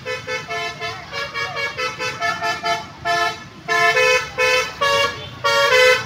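Bus's multi-tone basuri (telolet) air horn playing a melody of short notes, quick at first, then longer and louder notes from about halfway through as the bus draws near.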